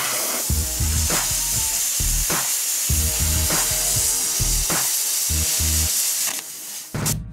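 Air plasma cutter torch hissing and crackling steadily as its arc cuts through 2.5 mm steel, stopping a little over six seconds in. Background music with a steady beat plays underneath.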